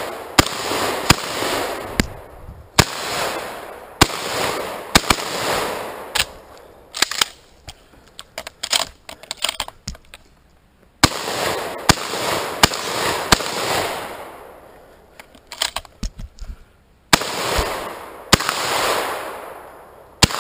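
Shotgun fired in quick strings, roughly a shot a second, each blast trailing off in a long echo through the trees. In a lull in the middle, lighter clicks and clacks of the gun being handled take over before the shooting resumes.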